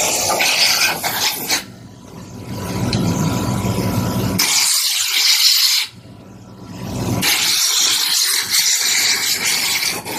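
Three long bursts of loud hissing at the CNC mill, with a steady low machine hum in the quieter gaps between them.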